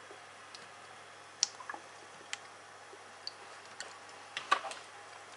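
A few faint, scattered clicks and ticks from a plastic oil bottle and frying pans being handled while sunflower oil is poured into a pan on a glass induction hob.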